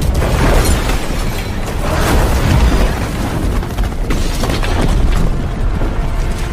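Film destruction sound effects: a continuous deep rumble with several loud crashing surges, about one every second or two, over a music score.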